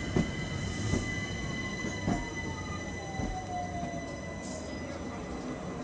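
London Overground Class 378 electric train running slowly into the platform and slowing to a stop, with a low rumble and a falling electric whine as it decelerates. Three sharp knocks from the wheels come in the first couple of seconds.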